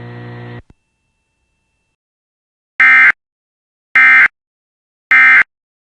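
Three short identical bursts of Emergency Alert System SAME data tones, a little over a second apart: the End of Message code that closes the alert. Before them a steady hum cuts off about half a second in.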